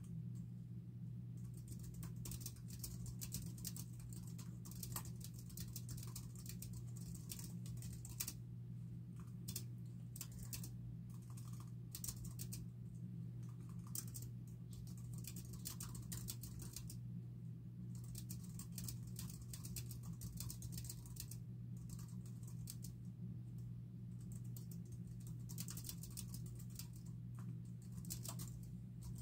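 Typing on a small flat computer keyboard, fast clicking keystrokes in irregular runs broken by short pauses. A steady low hum runs underneath.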